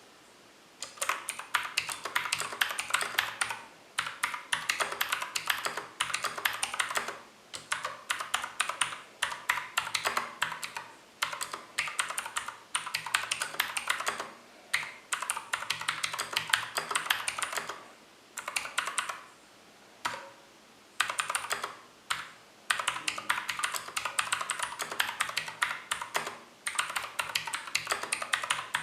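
Fast typing on a Zebronics Max Pro mechanical keyboard with clicky Outemu Blue switches and Cherry-profile keycaps: dense runs of sharp key clicks, paused briefly every few seconds.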